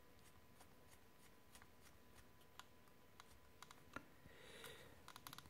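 Faint small clicks and light handling noise as a screwdriver turns a screw into the metal chassis of a cassette deck mechanism, with a soft rustle and then a quick run of clicks near the end.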